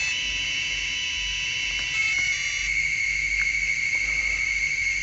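Maytag washer electronics energised on the bench, giving a steady high-pitched electronic whine that shifts slightly lower and louder about two seconds in. The noise is the fault under repair: the interface board is making noise, with the 13 V supply sagging, which the technician suspects comes from a defective power supply oscillating or a short on the interface board.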